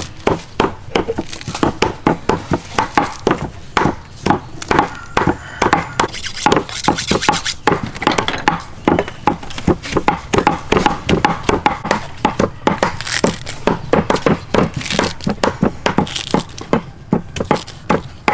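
Knife chopping green stalks on a round wooden chopping block: a steady run of sharp knocks, several a second.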